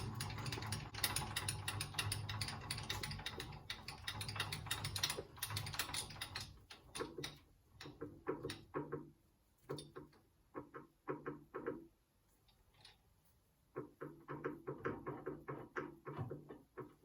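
Small milling machine cutting a hard steel lathe-tool blank with a freshly fitted cutter. It makes about six seconds of continuous cutting noise over the motor's hum, then a run of short separate bursts with pauses between them.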